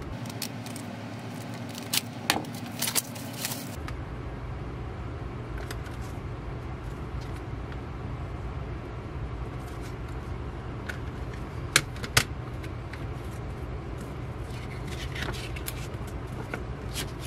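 Handling of a plastic CD jewel case: shrink wrap slit with a box cutter and crackling as it is peeled off, two sharp plastic clicks a little before the middle as the case is worked open, then paper rustling as the folded booklet is taken out, over a steady low hum.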